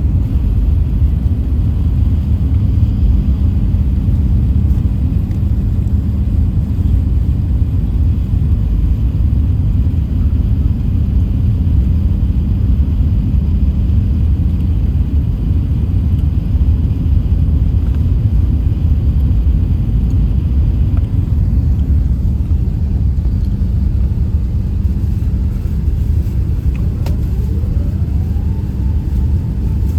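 Steady low rumble of an Emirates Airbus A380-800's engines and airflow heard inside the cabin during takeoff. A faint rising tone comes in near the end.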